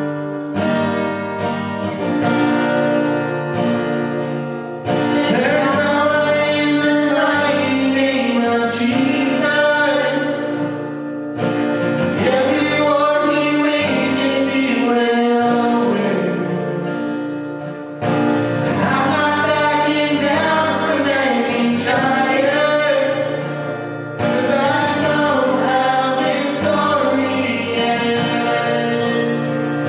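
Worship music: a strummed acoustic guitar playing chords, with singing coming in about five seconds in.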